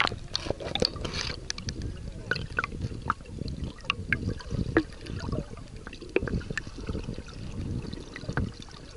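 Water gurgling and sloshing around a camera held underwater, heard as a muffled low rumble with many small clicks and pops scattered through.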